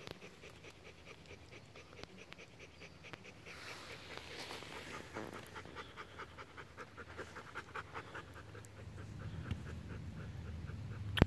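Bernese Mountain dog panting, a steady train of quick breaths at about three a second. A sharp click near the end is the loudest sound.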